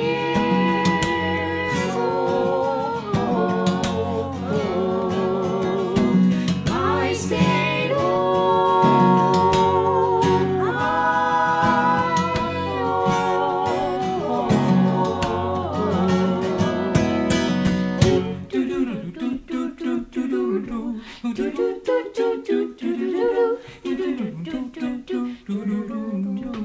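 Mixed voices of a man, a woman and a girl singing a folk song in harmony with a strummed acoustic guitar. About 18 seconds in the guitar stops and the voices carry on unaccompanied in short, quick broken phrases.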